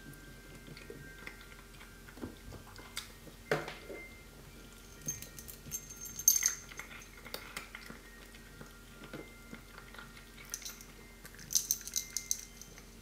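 Soft scattered clicks and rustles of three-week-old kittens shifting about on towels in a cardboard box, busiest about six seconds in and again near the end.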